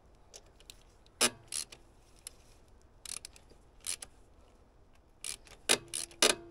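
Hand socket ratchet clicking and metal tools clinking in a handful of short, separate bursts, the last two knocks ringing briefly, as the tension on a new alternator and AC belt is adjusted on an excavator's engine.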